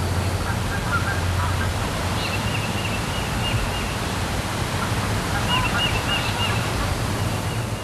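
Outdoor woodland ambience: a steady rushing hiss with birds chirping in quick runs, about two seconds in and again around five to six seconds.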